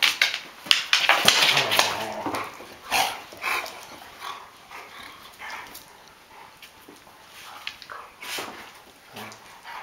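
Two Rhodesian Ridgebacks play-fighting: growls, barks and snapping jaws, with paws scuffling on the floor. Loudest in the first three seconds, then quieter and more scattered.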